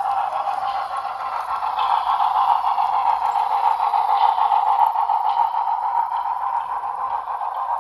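Model train rolling past on its track: a steady rolling whir of small metal wheels on rail behind a model PRR K4 steam locomotive, a little louder as the cars pass closest.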